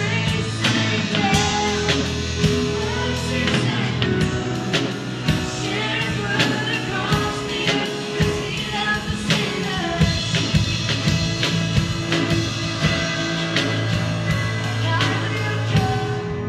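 A woman sings a Christian worship song live, accompanying herself on a strummed acoustic guitar.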